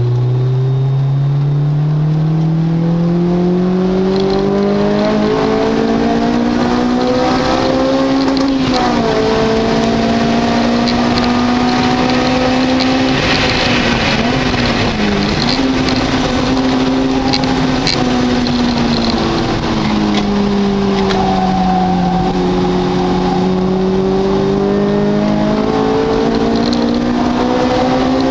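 Car engine driven hard round a race circuit. Its pitch climbs steadily for about eight seconds under acceleration, with brief dips as it changes gear. It falls as the car slows about two-thirds of the way through, then climbs again near the end.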